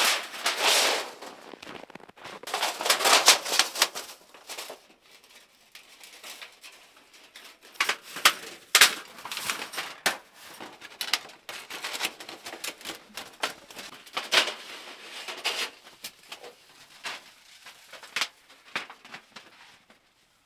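Metal stovepipe of a portable tent wood stove being handled and fitted into place: scattered clinks, knocks and short scrapes, busiest in the middle and thinning out near the end.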